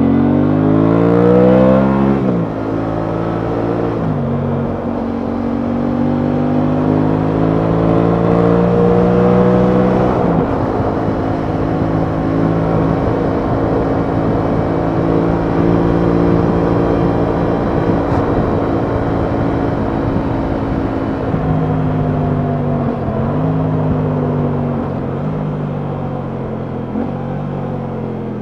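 Aprilia Tuono 660's parallel-twin engine accelerating through the gears: the pitch climbs and drops sharply at each upshift, about two, four and ten seconds in. It then holds a steady cruise and eases off, with several quick gear changes in the last few seconds. Wind rushes over the microphone underneath.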